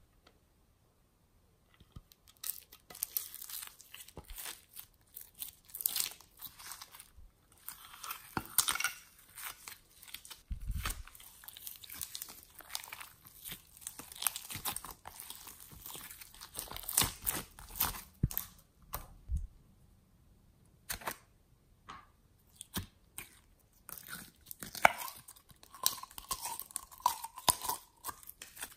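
Hands squeezing and kneading sticky glitter slime make a dense run of wet clicks, crackles and pops. The first two seconds or so are near silence.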